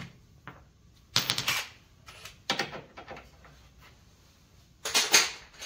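Three short bursts of rapid metallic clicking and clattering, about 1, 2.5 and 5 seconds in, from hand tools and parts being handled while working on a side-by-side's front suspension.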